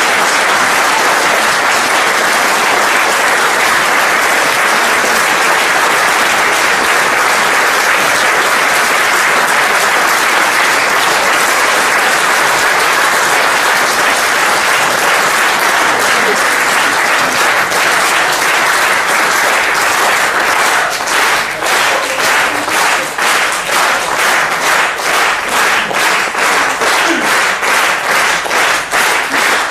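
Theatre audience applauding at a curtain call: dense, loud applause that, about two-thirds of the way through, falls into rhythmic clapping in unison at roughly two to three claps a second.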